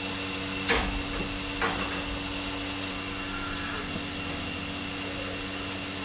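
Portable trolley bucket milking machine's vacuum pump running with a steady hum while milking a freshly calved cow for her colostrum. Two sharp knocks come early in the first two seconds.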